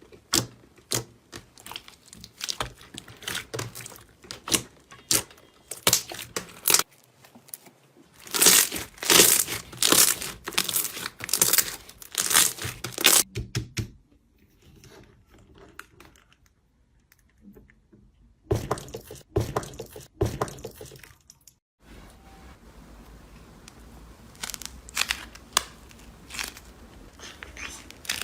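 Slime being squeezed and pressed by hand, making sharp clicks, pops and crackling. The sound comes in several short bursts, the densest crackling about a third of the way in, with a quieter stretch after the middle.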